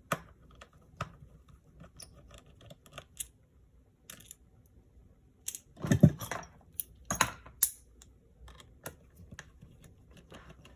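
Small irregular clicks and taps of a precision screwdriver and tiny screws as screws are taken out of a MacBook Air's open chassis, with a short run of louder knocks about six to seven and a half seconds in.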